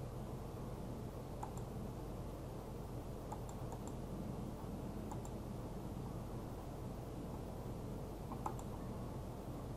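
A few short, faint clicks, scattered irregularly, over a steady low hum and hiss.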